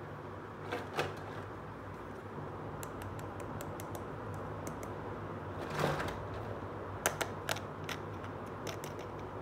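Small hard-plastic toy cookware clicking and tapping as it is handled: scattered light clicks, a longer scraping knock a little before six seconds in, then a few more clicks. A steady low hum runs underneath.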